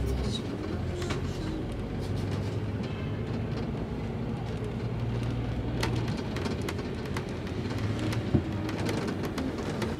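City bus engine heard from on board, running with a steady low hum over road and traffic noise while the bus moves slowly in traffic, with small rattles and one sharp knock about eight seconds in.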